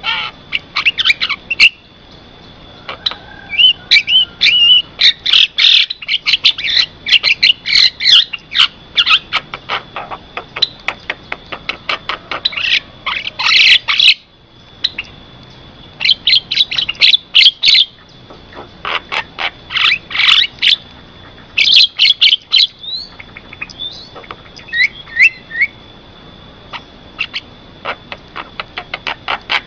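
Javan myna singing: fast chattering phrases of clicks, squeaks and short whistled notes in bursts a few seconds long with brief pauses between them, over a faint steady high tone.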